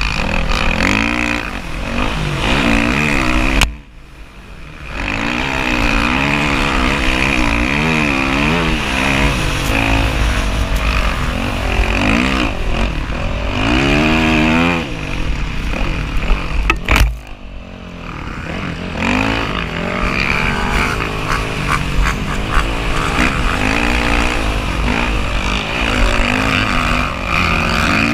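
Dirt bike engine revving up and down as the bike climbs and carves across sand dunes, with a steady rumble of wind on the microphone. The throttle falls away sharply twice, about four seconds in and again past the middle, the second time just after a sharp crack.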